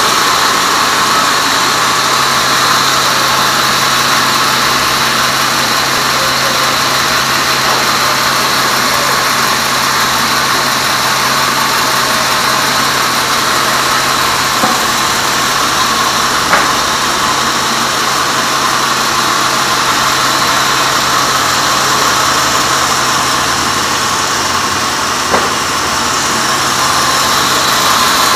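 Sawmill band saw running steadily, a constant mechanical hum and whir, with a few short knocks about halfway through and near the end.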